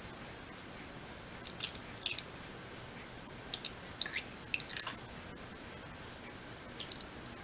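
Oil poured in a thin stream from a large glass jar into a plastic cup: a few short, faint wet clicks and drips at irregular moments over a low hiss.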